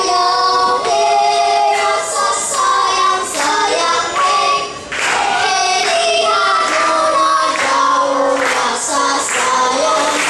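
A small group of children singing a song together into microphones, holding and moving between sung notes, with a brief break about five seconds in.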